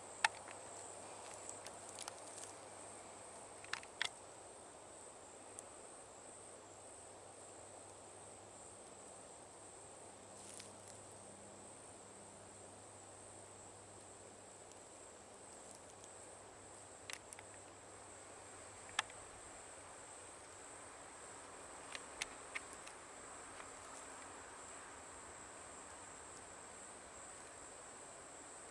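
A steady, high-pitched chorus of night insects, crickets trilling, with a few sharp clicks scattered through it.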